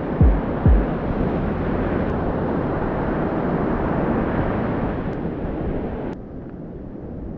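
Wind buffeting the microphone over the wash of sea surf, with two low thumps from gusts in the first second. About six seconds in, the sound drops abruptly to a quieter wash.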